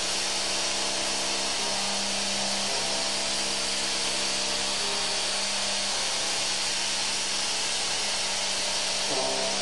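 A Seco Super Turbo indexable milling cutter pocket milling on a milling machine: a steady hissing cutting noise, with held tones underneath that change pitch a few times.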